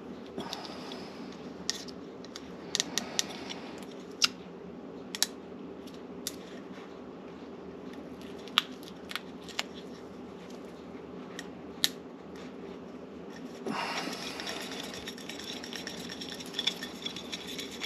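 Scattered sharp clicks and taps from hands working the sink-drain seal and flange parts, over a steady low hum. About fourteen seconds in, a continuous scraping rustle starts and carries on.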